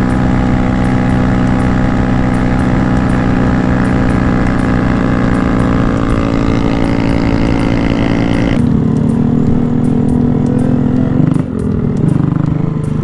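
Honda Grom's 125cc single-cylinder engine holding a steady drone at highway cruising speed, about 55 mph, with wind noise. About two-thirds of the way in the sound changes abruptly to a lower engine note at low speed, which dips briefly and then picks up again near the end.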